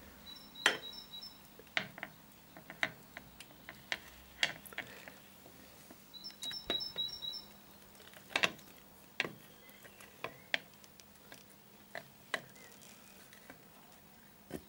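Scattered light knocks and clicks as the Honda NTV 650's aluminium valve cover is handled and worked back into place over the cylinder head, the loudest about a second in and again about eight seconds in.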